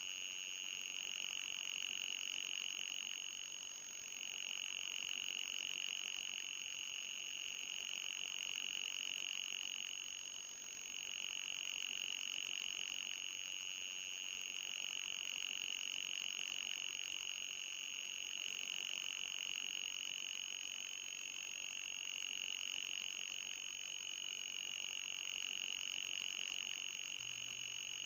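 Electronic anti-mosquito repellent tone: a steady, high-pitched buzzing whine with a fainter, higher whistle above it, dipping briefly twice and wavering slightly near the end.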